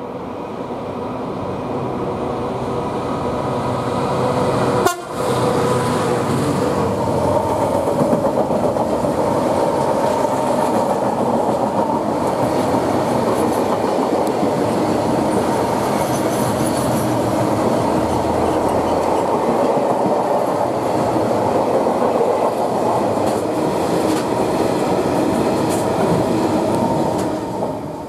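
EWS Class 66 diesel locomotive 66171, with its two-stroke V12 engine, passes close below, hauling a long train of loaded ballast wagons; after it, the wagons roll steadily by on the rails, and the sound fades near the end. A single sharp thump about five seconds in.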